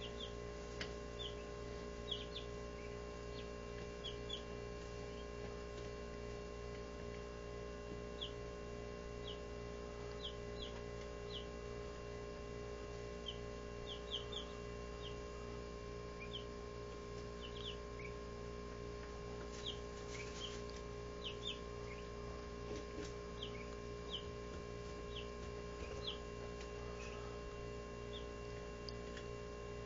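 17-day-old Barred Rock chicks peeping: short, high cheeps scattered all through, a few in quick pairs, over a steady hum.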